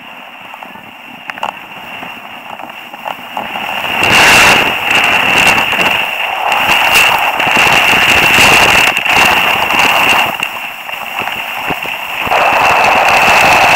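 Skis scraping and chattering over packed snow with wind buffeting the helmet camera's microphone as the skier sets off downhill about four seconds in; the noise rises and falls with the run, with a steady high whistle over it, after a few seconds of quieter snow crunching and small clicks.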